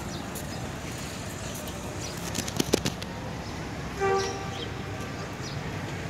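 Steady street traffic noise, with a quick run of sharp clicks a little before halfway and one short pitched beep about four seconds in.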